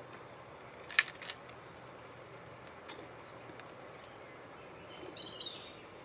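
Two sharp clicks about a second in, then a few faint ticks, as small wood is fed into the fire base of a Kelly Kettle wood-burning kettle. Near the end a bird gives a short burst of chirps over a low steady outdoor background.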